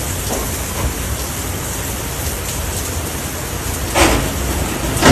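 Steady rain falling, an even hiss, broken by two sharp knocks about four and five seconds in, the second the louder.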